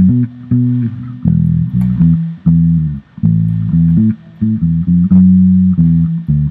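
Electric bass guitar playing a rhythmic line of low plucked notes, some held and some cut off short, with brief gaps between phrases.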